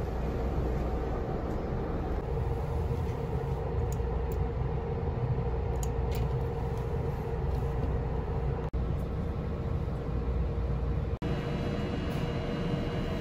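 Steady low hum inside the passenger cabin of a 253-series electric train standing at the platform, with a steady mid-pitched tone over it. A few faint clicks come in the middle, and the sound cuts out briefly twice near the end.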